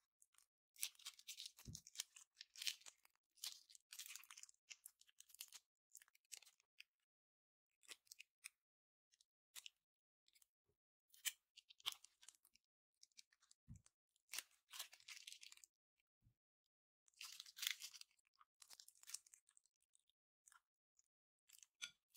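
Faint handling of slime: squishing and pressing that gives irregular bursts of small crackling pops and clicks, separated by short pauses, with a couple of soft thuds.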